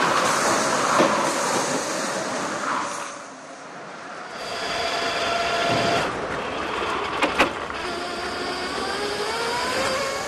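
Sodi Kart STX electric race karts running, their electric motors whining, with rising whines as they accelerate over tyre and track noise. Two sharp knocks come in quick succession a little after the middle.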